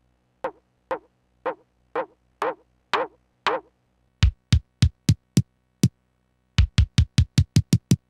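1010music Blackbox sampler firing a short electronic one-shot sample again and again: seven hits with a quickly falling pitch, about two a second. From about four seconds in come shorter hits with a deep low end, and near the end they come in a quick run of about ten.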